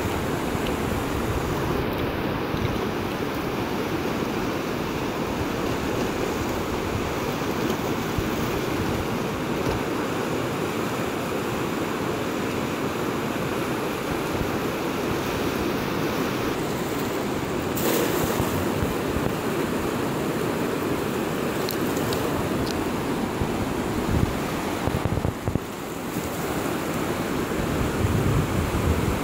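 Steady rush of a fast-flowing river churning past rocks, with wind buffeting the microphone.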